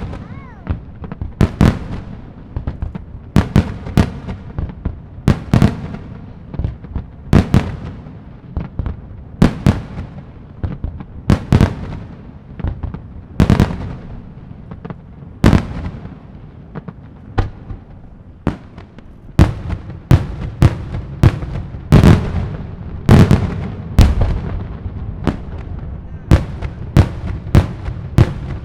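Daylight fireworks display: a steady run of loud aerial salute shells bursting, about one to two sharp bangs a second, each with an echoing tail. The bangs come thicker and louder in the last third.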